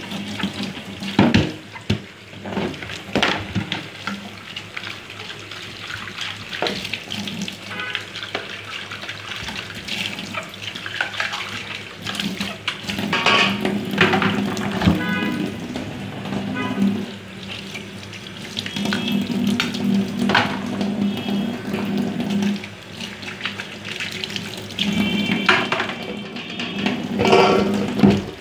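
Tap water running into a stainless steel sink while a plastic bowl is washed under it, splashing, with scattered knocks of the bowl against the sink.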